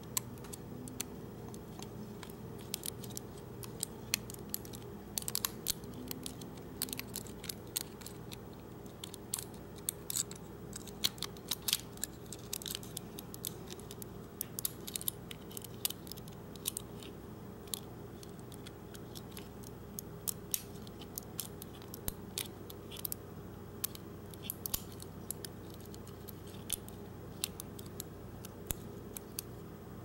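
Hook pick and tension wrench working the pins of a U-Haul disc padlock during single pin picking: small, irregular metallic clicks and scrapes, often in quick clusters.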